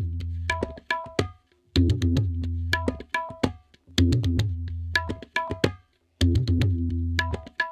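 Percussive background music: a drum phrase of deep strokes and short pitched notes that repeats about every two seconds, with brief gaps between the phrases.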